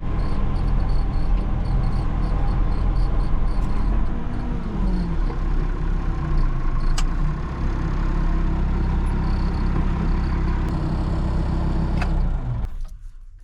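Diesel tractor engine running steadily, with a brief drop in pitch about four seconds in. The engine sound cuts off near the end.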